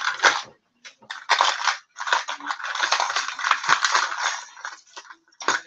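Hard plastic fishing lures clattering against each other and the plastic tackle box as it is rummaged through: a short rattle, a brief pause, then several seconds of dense clatter.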